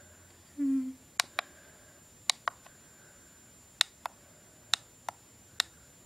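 Small buttons on a cheap mini camcorder clicking, mostly in quick pairs about a quarter second apart, roughly one pair a second, as its menu settings are stepped through. A brief low vocal hum comes just before the first clicks.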